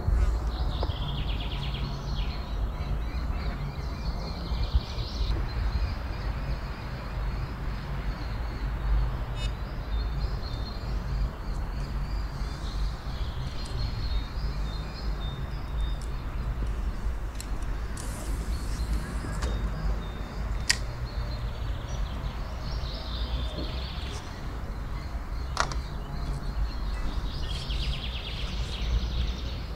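Outdoor background noise: a steady low rumble, with faint bird calls now and then and two sharp clicks in the second half.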